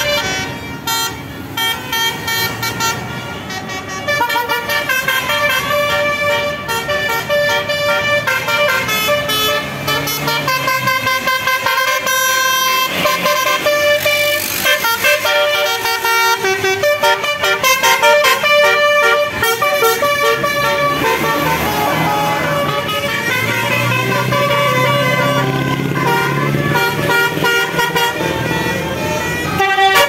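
Tour buses' telolet horns (basuri multi-tone air horns) playing quick melodic strings of notes that keep changing pitch, with bus engines running underneath, louder near the end.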